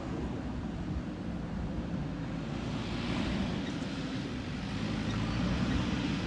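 JCB 3DX backhoe loader's diesel engine running steadily with a low rumble.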